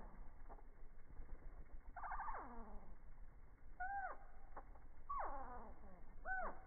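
Hummingbird calls slowed down with slow-motion video, so they come out as low, drawn-out calls that sweep steeply downward in pitch. There are about four of them, one every second or so, with a few short faint strokes between, over a low rumble.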